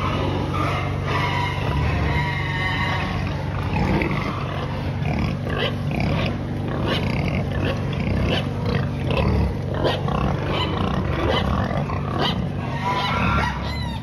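Pigs grunting and snuffling with their snouts on the pen floor as they root at feed, over a steady low hum.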